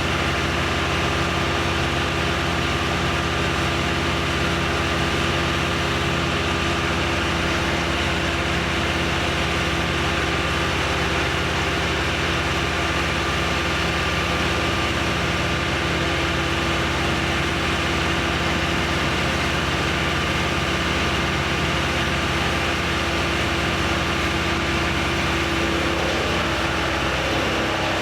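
An engine running at a steady speed, its pitch and loudness holding constant, with a slight shift in pitch near the end.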